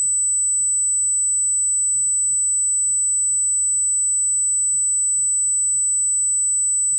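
A steady high-pitched electronic tone over a faint low hum, with a faint click about two seconds in.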